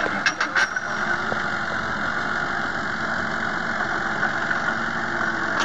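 Crawler mini excavator's diesel engine running steadily as the machine works and moves, with a few sharp knocks about half a second in.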